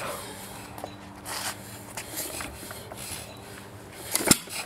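Small air-cooled Ideal hit-and-miss engine being turned over by hand, with a faint steady hum and light clicks. About four seconds in it fires once with a single sharp bang, its ignition timed a little early.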